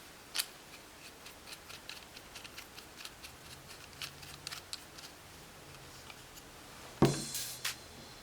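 Sparse small clicks and taps from hands handling a camera and its packaging, with a louder clatter of sharp knocks about seven seconds in.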